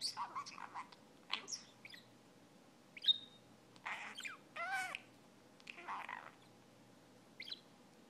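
Blue budgerigar chattering: about seven short bursts of chirps and warbling notes, some gliding in pitch, with a few sharp clicks between them.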